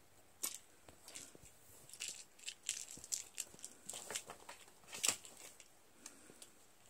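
Hanging cat toy being knocked about, making irregular clicks, rattles and crinkles, with a cluster of quick ones in the middle and the loudest about five seconds in.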